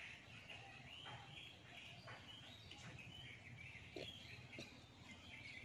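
Faint chirping of small birds, many short calls overlapping, with a couple of light ticks about four seconds in.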